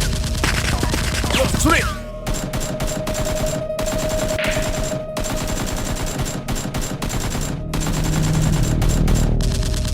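Rapid gunfire fired in fast, continuous bursts during a Nerf gun battle, with a steady tone behind it.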